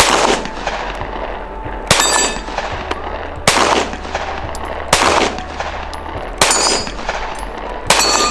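Six pistol shots fired at a steady pace, about one and a half seconds apart. Each crack is followed by a short echo, and a couple by a brief high ringing.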